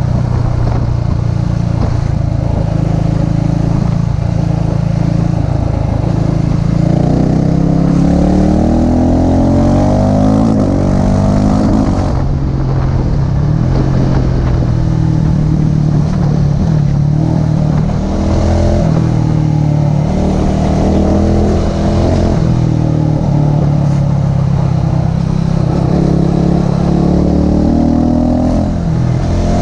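KTM motorcycle engine running under way, its revs climbing in several rising sweeps and dropping back at each gear change. Wind noise runs underneath.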